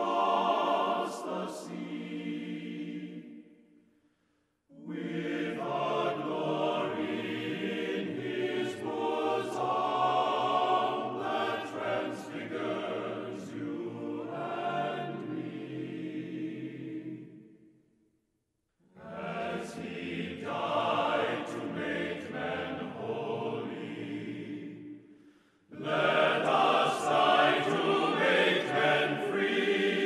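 Background choir music: a choir singing in long phrases, with brief pauses about 4, 18 and 25 seconds in.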